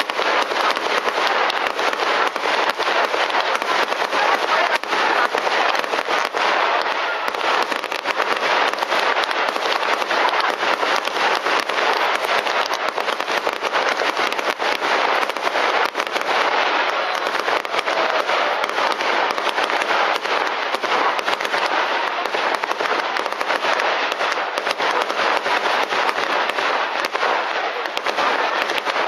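Fireworks display: aerial shells bursting in a continuous barrage, a dense unbroken mass of crackling and popping.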